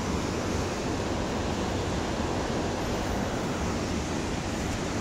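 Steady rushing of a whitewater creek in the gorge below, an even unbroken roar of water.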